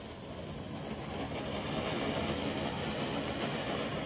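Phantom Fireworks Butterfly fountain firework burning and spraying sparks, a steady rushing noise that swells over the first two seconds as the fountain builds up, then holds.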